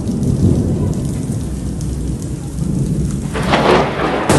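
Steady heavy rain with a continuous low thunder rumble. Near the end comes a louder burst, followed by a sharp crack.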